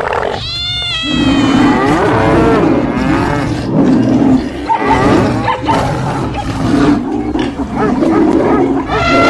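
Many animal calls overlapping, loud and continuous, with long calls that bend up and down in pitch.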